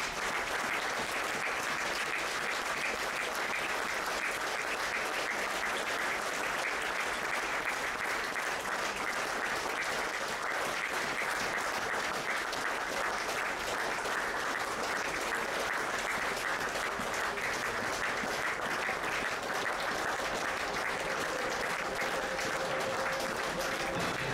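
Crowd applauding steadily for over twenty seconds, with many hands clapping together.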